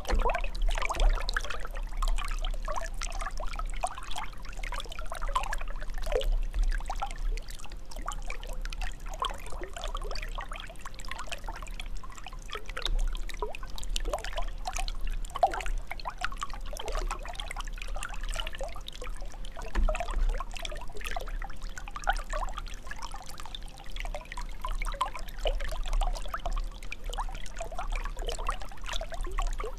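Shallow stream water rushing and gurgling over rocks, continuous and uneven, over a steady low rumble.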